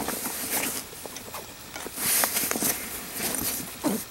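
Rustling and handling of a fabric gear bag as a pair of chainsaw chaps is pushed inside and the bag is closed, with scattered light knocks and a longer rustle about two seconds in.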